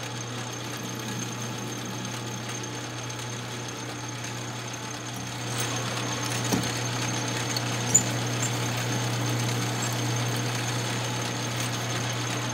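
Metal lathe running steadily, spinning an aluminum workpiece while a drill bit in the tailstock chuck is fed into it. The sound gets a little louder about halfway through, with a couple of small clicks.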